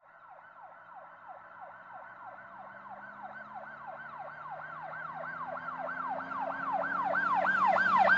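Police siren on a fast yelp, with quick falling wails about three a second, growing steadily louder.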